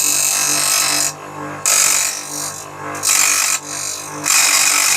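Grinder motor running with a steady hum while the steel tip of a flat-blade screwdriver is pressed against the grinding wheel four times in short stretches, each a loud hissing grind. The worn tip is being ground flat and square.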